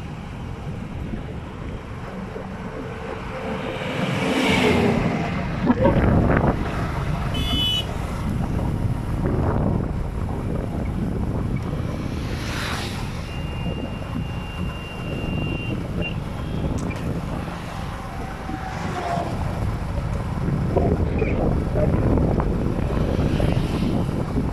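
Highway traffic heard from a moving vehicle: a steady low wind rumble on the microphone, with motorcycles and other vehicles whooshing past every few seconds and a few short horn toots.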